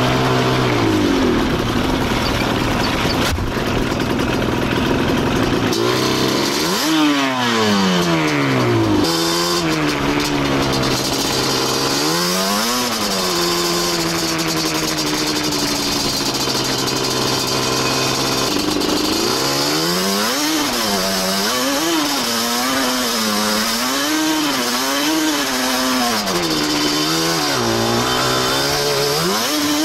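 Yamaha Banshee's two-stroke twin-cylinder engine revving up and down as the quad is ridden, with long sweeps of throttle partway through and a run of quick blips, about one a second, near the end.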